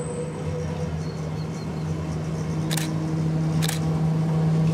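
Vintage Rotterdam RET tram 535 with its trailer approaching along the track: a steady low hum that grows slowly louder. Near the middle there are two brief, sharp hissing noises about a second apart.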